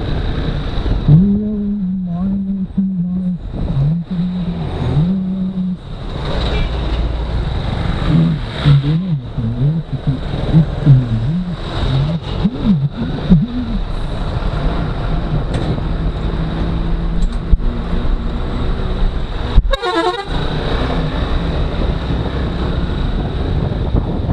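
Motorcycle engine running in slow traffic, its pitch rising and falling with the throttle, over steady road noise. Vehicle horns honk several times, most strongly near the end.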